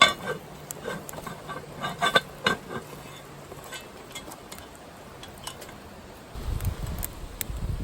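Cutlery clinking against dishes: a run of sharp, ringing clinks, loudest at the very start and clustered in the first two and a half seconds. Near the end, wind starts buffeting the microphone with a low rumble.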